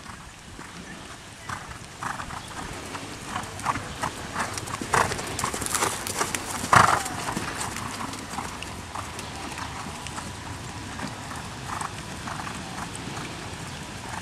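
Hoofbeats of a ridden horse trotting on a sand arena, a run of dull knocks, with one louder sharp sound a little past halfway.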